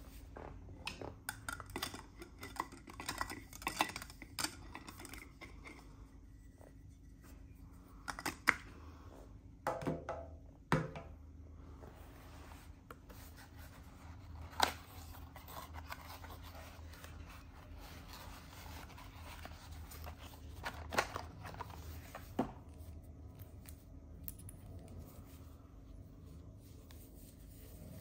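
Handling noise: gloved hands rubbing and gripping the plastic body of a handheld vacuum and cardboard boxes, with irregular rustling and a few sharp clicks and knocks.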